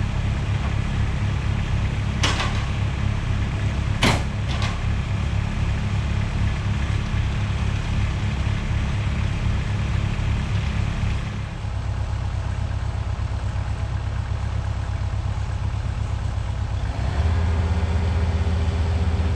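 Kubota excavator's diesel engine running steadily, with a few sharp knocks in the first few seconds. The engine note drops about eleven seconds in, then rises and grows louder near the end.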